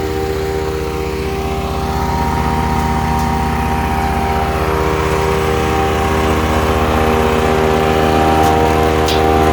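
Ducar woodchipper's 420 cc gas engine running steadily under power, with a few sharp clicks near the end.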